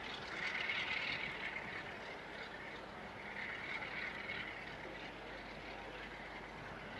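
Class 47 diesel locomotive's Sulzer twelve-cylinder engine working as it draws a train of coaches slowly along. It is heard as a faint, steady drone that swells a little about a second in and again near the middle.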